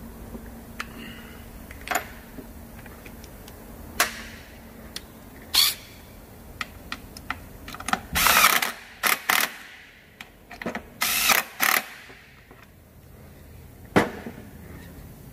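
Workshop tool sounds: sharp clicks and knocks of tools on metal parts, with a few short bursts of a power tool, the loudest about eight and eleven seconds in.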